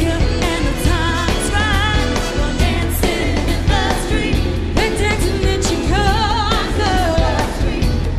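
Live pop band performance: female lead vocals singing with vibrato, joined by backing singers, over a steady drum beat and bass.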